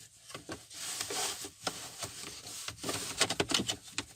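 Cabin air filter being slid back into its plastic housing: the filter frame scraping and rubbing against the housing, with a quick run of sharp plastic clicks about three seconds in.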